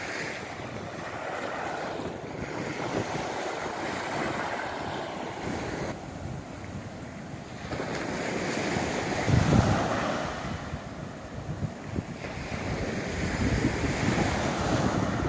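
Mediterranean Sea waves washing onto the shore, swelling and fading every few seconds, with wind buffeting the phone's microphone in low rumbling gusts.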